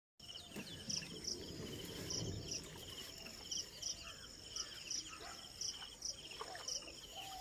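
Insects chirping outdoors in short trills that repeat every half second or so, at two pitches, one higher and one a little lower.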